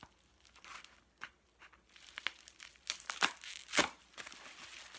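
Bubble wrap crinkling and tearing as it is cut open with a dull box cutter, in scattered sharp crackles that grow busier after about two seconds.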